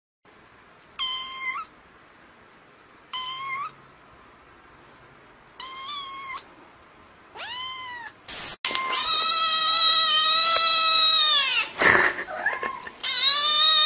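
Cat meowing: four short, high meows about two seconds apart, then louder, long drawn-out meows, with a brief noisy burst between them.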